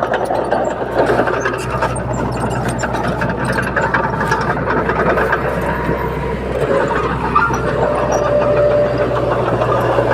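Komatsu D21P bulldozer's diesel engine running steadily at work, with a dense clatter and frequent sharp metallic clicks over a constant low hum.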